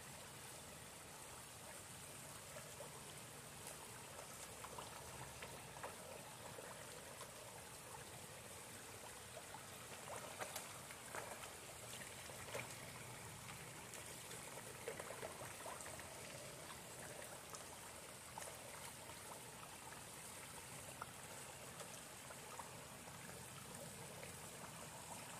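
Koi feeding at the pond surface: many small sharp pops and splashes, thickest around the middle, over the faint steady trickle of a small rock waterfall.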